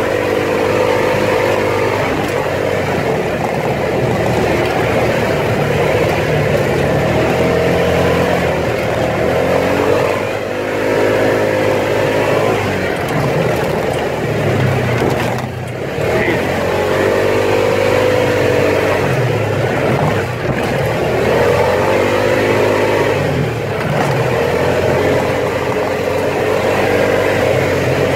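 Off-road vehicle's engine running under way, revving up and falling back again and again as the throttle is worked over uneven ground. It eases off briefly about halfway through.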